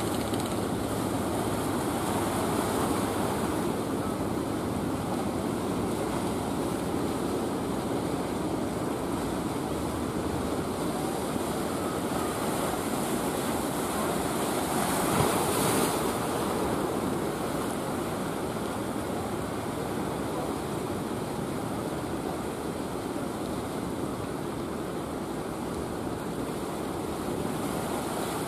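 Steady wash of sea waves with wind buffeting the microphone, swelling briefly about halfway through.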